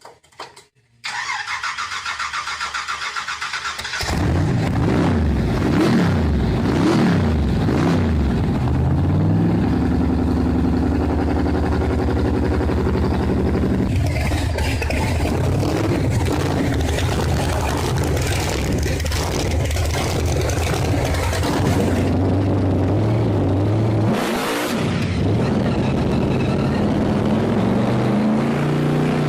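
Muscle car engine being cranked by the starter for about three seconds, catching about four seconds in, then revved several times before settling into a loud, steady run with more blips of the throttle near the end.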